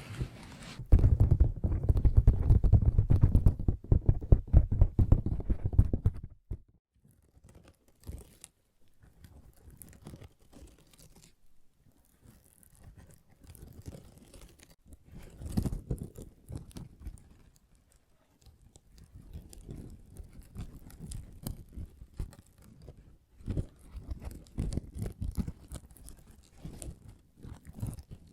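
Fingertips tapping and scratching close to the microphone in quick runs of strokes. The strokes are densest and loudest from about a second in to about six seconds, then come in sparser, quieter clusters.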